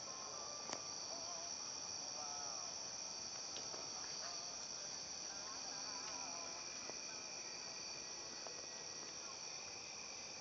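Crickets trilling steadily in high-pitched bands, with a few faint ticks.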